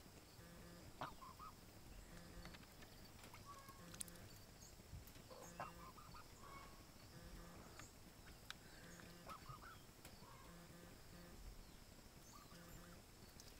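Faint short calls from a Canada goose, heard in a few brief clusters over an otherwise near-silent background.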